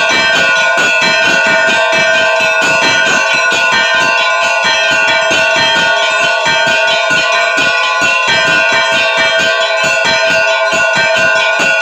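Orthodox church bells rung in a continuous peal: small bells struck in quick, dense strokes over the steady ringing of larger bells.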